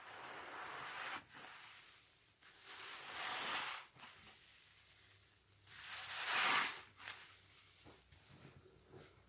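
A sponge soaked in washing-machine liquid squeezed three times, each squeeze a wet, hissing rush of suds lasting about a second, the third the loudest, with faint crackles of foam between.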